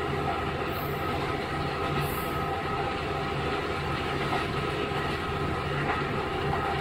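Onboard running sound of a KiHa 11 diesel railcar with its Cummins engine: a steady drone of engine and wheels on the rails, heard from inside the car.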